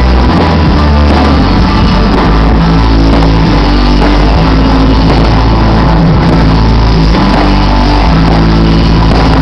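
Loud rock-style music with guitar, steady and continuous; no separate firework bangs stand out from it.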